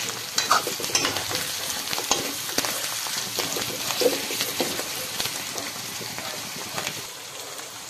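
Beef bone and chopped vegetables frying in a metal wok, sizzling steadily while a metal ladle stirs them, with scrapes and clicks of the ladle against the pan.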